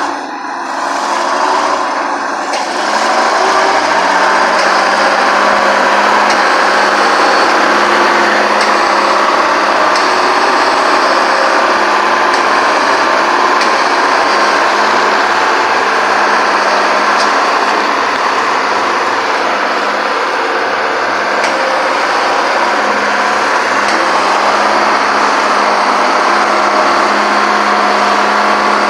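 1954 LeTourneau-Westinghouse Tournarocker's GM Detroit two-stroke inline-six diesel with blower, growing louder over the first few seconds, then running loud and steady with a deep rumble.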